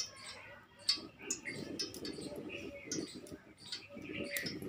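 Birds chirping in many short, sharp calls, with an uneven low sound underneath that comes in patches from about a second in.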